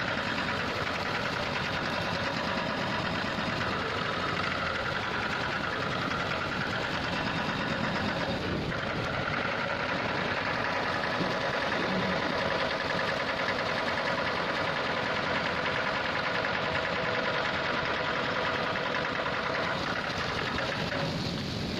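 Steady machine hum at a steel spillway flap gate during its operation, mixed with water splashing as it spills over the ends of the gate leaf.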